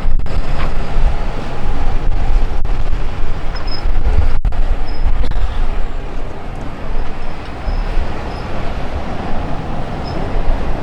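Gusty wind buffeting the microphone: a heavy, uneven low rumble that rises and falls with the gusts, over faint street ambience.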